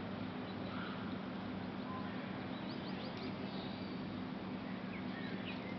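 Steady low hum of city background noise, with a few faint, quick, high bird chirps about three seconds in and again near the end.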